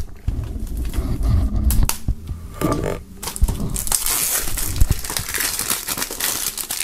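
Plastic shrink-wrap on a CD case being slit with a knife along the edge, with scraping and knocks of handling. From about three seconds in, the film crinkles steadily as it is peeled off the case.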